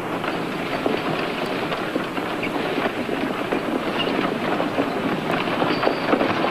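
Horse-drawn wagon rolling along: a steady clatter of wheels and harness with hooves clopping.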